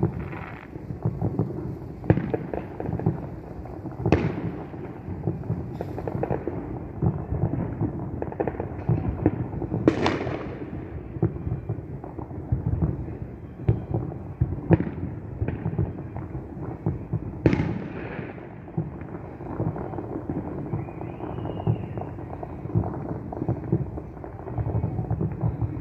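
Fireworks going off without pause: a dense run of pops and booms, with several louder sharp bangs, a few of which trail off in a hiss.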